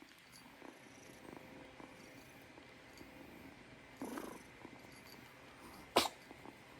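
Kitten purring steadily, with a short louder sound about four seconds in and a single sharp burst near the end, the loudest moment.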